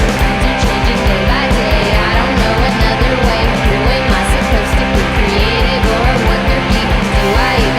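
Punk rock band recording: electric guitar over a fast, steady drum beat.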